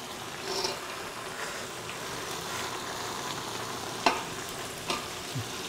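Onion-tomato masala with curd frying and sizzling in a pan, with stirring, and two sharp clicks about four and five seconds in.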